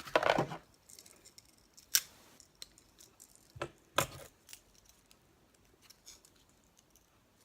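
A knife blade clicking and scraping against a fidget spinner as it is used to pry at the spinner's caps. There are a few short, sharp clicks, the loudest cluster right at the start and others about two and four seconds in.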